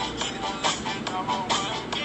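Background music with a steady beat and a sung or synthetic vocal line.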